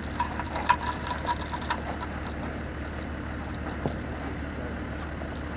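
Small metal pieces clinking and jangling for about two seconds, with a bright ringing, then stopping. A steady low hum runs underneath throughout.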